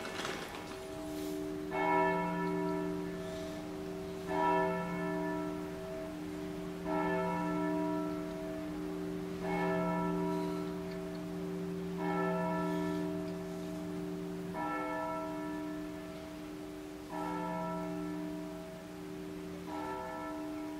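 Church bell tolling, struck about once every two and a half seconds. Each stroke rings on and fades over a steady low hum that carries through between strokes.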